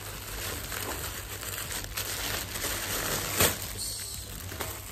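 Plastic shipping mailer bag rustling and crinkling as it is pulled open and a plastic-wrapped package is drawn out, with one sharper crackle about three and a half seconds in.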